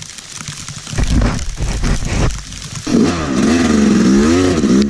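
Dirt bike engine with low rumbling blips about a second in. From about three seconds in the engine runs on with its pitch rising and falling under the throttle as the bike rides off through the mud.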